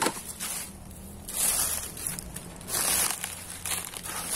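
Footsteps crunching through dry leaf litter and dead banana leaves, with two louder crunches about a second and a half apart.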